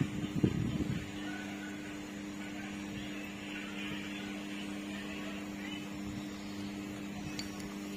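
Steady low electrical mains hum, with a few soft low bumps in the first second.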